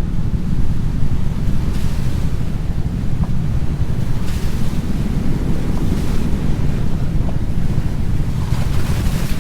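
A loud, steady low rumbling noise with a hissing swell every two seconds or so.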